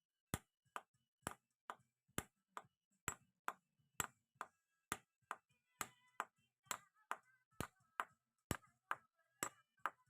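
Steady ticking: a sharp click a little over twice a second, evenly spaced, with faint high tones around the middle.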